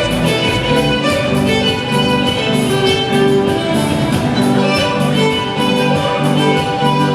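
Background music with bowed strings playing held notes that change roughly every half second.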